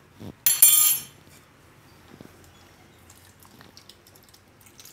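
A steel spoon clatters briefly, set down on a stone countertop, about half a second in. Faint small clicks and soft handling sounds follow as curd-water is poured from a plastic bowl onto flour dough.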